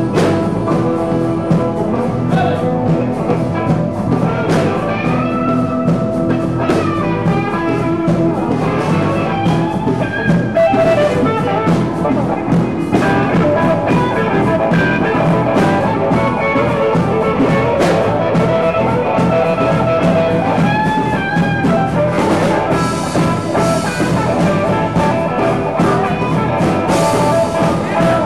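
Live blues band playing, with harmonica and electric guitar over a steady beat.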